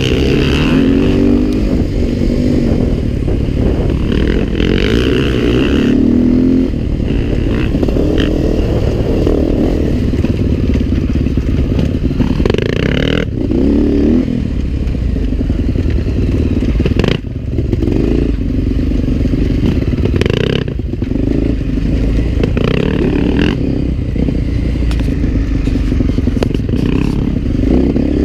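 Dirt bike engine revving up and down as the bike is ridden over rough trail, with clatter and a few sharp knocks from the bike.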